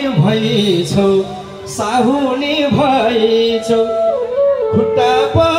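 Nepali dohori folk song performed live: a singer's wavering melody over instrumental backing, with several drum strikes.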